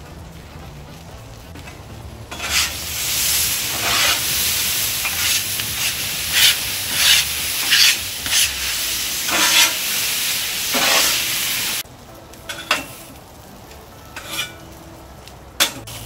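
Homemade hash brown potatoes sizzling loudly on the hot steel of a Blackstone 22-inch griddle, with water thrown down to steam them, as a metal spatula scrapes and turns them over and over. The sizzle starts about two seconds in and cuts off suddenly about twelve seconds in, followed by a few light spatula clacks.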